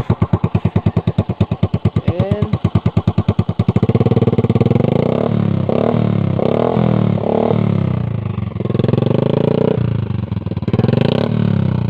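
Suzuki Smash 115's single-cylinder four-stroke engine running through a homemade conical exhaust pipe of welded galvanized sheet. It idles with a slow, even beat for about four seconds, then is revved in a series of short throttle blips that rise and fall.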